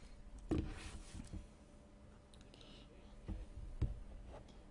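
A handful of faint, sharp clicks from trading cards and plastic card sleeves being handled on a table.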